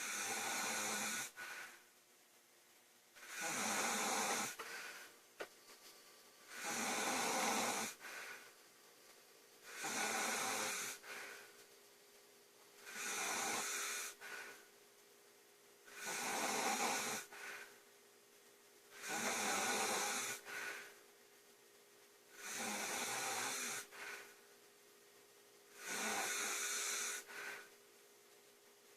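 A woman snoring loudly and steadily in her sleep: nine rattling, hissy snores, one about every three seconds, each lasting about a second and a half, with quiet breathing gaps between them.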